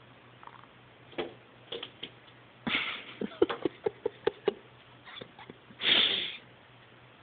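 A bird striking and tapping at window glass: a few scattered taps, then a quick run of about a dozen sharp taps, and a short scuffling burst near the end, the loudest sound.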